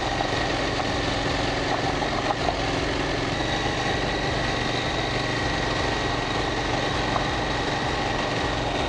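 KTM 790 Duke's parallel-twin engine running at a steady pace while riding, with road and wind noise. The level stays even throughout.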